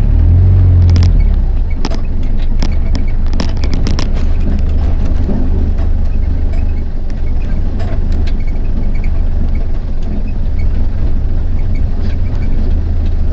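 Vehicle engine running while driving over a rough dirt track: a heavy low rumble, loudest in the first second or so, with scattered knocks and rattles from the bumps.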